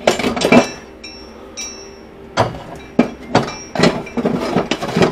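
Hard objects being handled and put away: a series of knocks and clatters, with short clinks that ring briefly.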